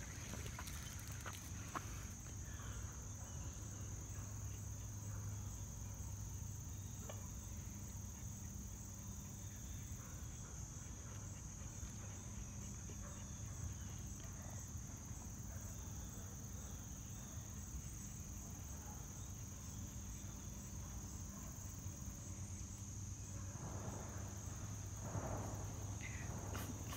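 Faint steady chorus of insects, high-pitched and continuous, over a low hum. A few faint sharp reports of distant gunfire from a police shooting range stand out, the clearest about two seconds in.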